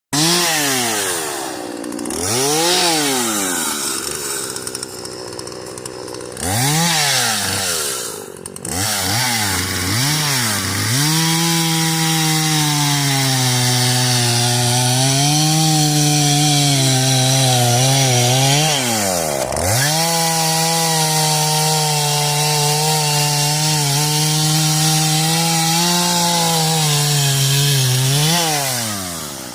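Husqvarna 120 two-stroke chainsaw revved up and dropped back to idle several times over the first ten seconds, then held at high revs and running steadily under load as it cuts into dead ash wood. The revs dip sharply once about two-thirds of the way through and rise and fall again near the end.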